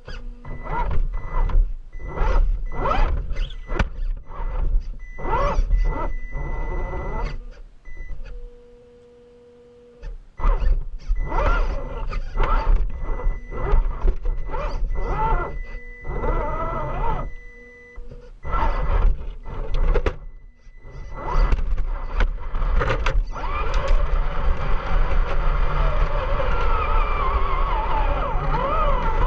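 Axial SCX10 II RC rock crawler heard from a GoPro on its own body: its electric motor and gears whining up and down in pitch as it drives, stops and starts again over concrete rubble, with knocks from the chassis and tyres on the rocks. Near-silent pauses mark where it stands still, twice.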